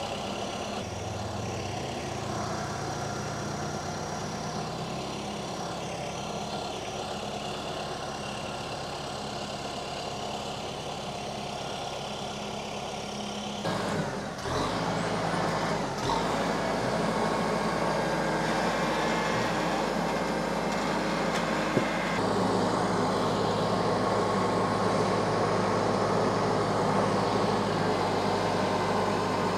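Tractor engine running steadily; its sound changes abruptly about halfway through.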